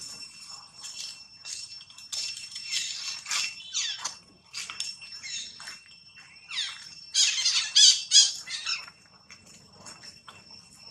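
A run of short, high-pitched animal squeals and squawks, some gliding in pitch, coming in quick clusters and loudest about seven to eight and a half seconds in, over a faint steady high whine.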